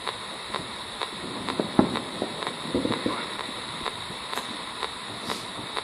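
P-SB7 Spirit Box sweeping the AM radio band: steady static broken by a click about twice a second as it steps from station to station, with brief snatches of broadcast sound in between. One louder, sharper thump about two seconds in.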